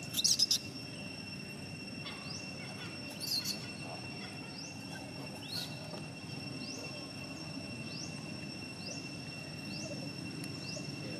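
Steady high-pitched insect drone, with short rising chirps repeating roughly once a second. Two brief shrill calls stand out, one just at the start and another about three seconds in.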